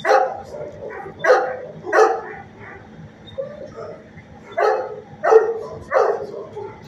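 Dog barking in a shelter kennel: six sharp barks in two groups of three, with fainter yips between them.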